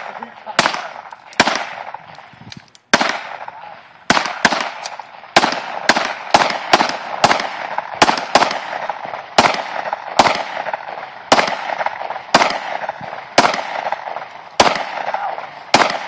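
Handgun fire from several shooters on a firing line: a steady string of sharp, irregular shots, often two or three within a second, each with a short echo.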